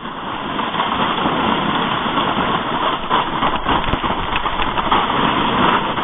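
Jet sled sliding downhill over snow, a steady rushing scrape mixed with wind buffeting the sled-mounted GoPro's microphone, growing louder over the first second as it gathers speed.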